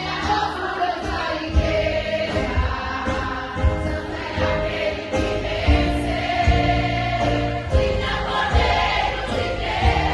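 Live Christian worship music: voices singing a sustained melody over a band, with a strong low beat about every two seconds.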